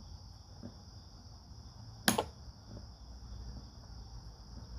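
Bonney R22 refrigeration ratchet's pawl clicking over a tooth as the handle is slowly worked against its backdrag, the pawl spring set screw turned one turn in: one sharp click about two seconds in and a couple of faint ticks. A steady high whine runs underneath.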